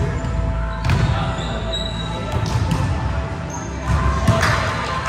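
Volleyballs being struck and bouncing on a hardwood gym floor: a sharp smack at the start, another about a second in, and a louder one a little past four seconds. Brief sneaker squeaks and players' voices carry on underneath.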